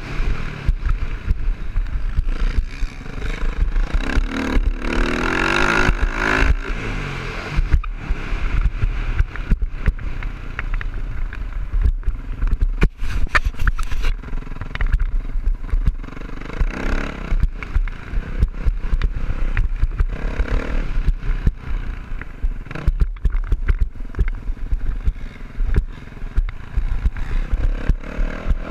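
Dirt bike engine revving and pulling through the gears while riding, heard from a helmet-mounted camera under heavy wind buffeting and frequent knocks and clatter. The engine's pitch climbs clearly a few seconds in.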